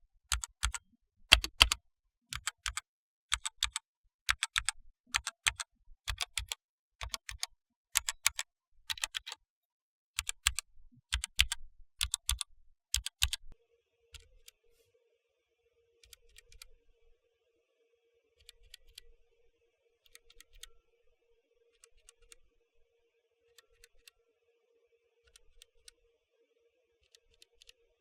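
Outemu Red linear mechanical keyboard switches pressed and released one key at a time, sharp clicks coming evenly at almost two a second. About halfway through the keystrokes turn much quieter and sparser, over a faint steady hum.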